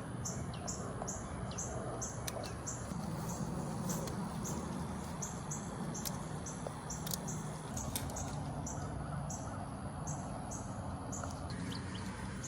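Outdoor garden ambience: a short high chirp repeats about twice a second, pausing briefly twice, over a steady low rumble.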